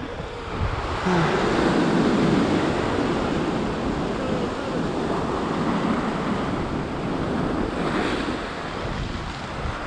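Ocean swell surging against a rock ledge, the white water washing and churning, with wind buffeting the microphone.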